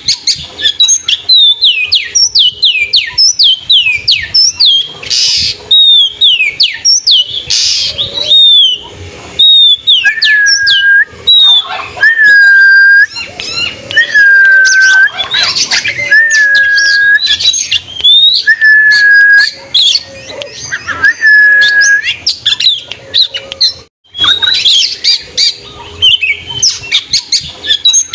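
Oriental magpie-robin (kacer) singing: a quick string of high, down-slurred notes, then a run of about six long, level whistles some two seconds apart, then quick high notes again near the end.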